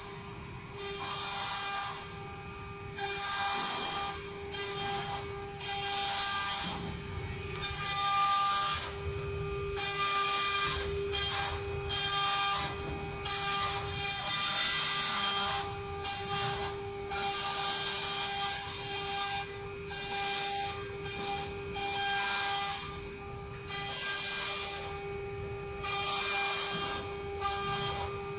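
CNC wood-carving router at work: a steady spindle whine, with the bit cutting into wood in repeated rasping bursts as it moves along its passes.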